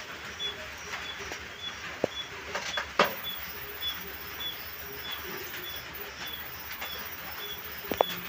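A short high chirp repeating steadily about twice a second, over a low hiss, with a few sharp cracks from the burning firewood. The loudest crack comes about three seconds in, another about a second before the end.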